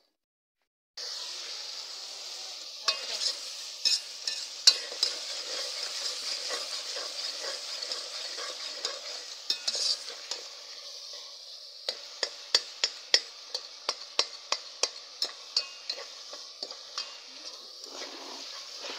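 Tomato, onion and green-chilli masala sizzling in ghee in a steel pot, stirred with a metal spoon that clinks and scrapes against the pot. The sizzle starts suddenly about a second in. The spoon strikes come in a regular run of about two a second in the second half.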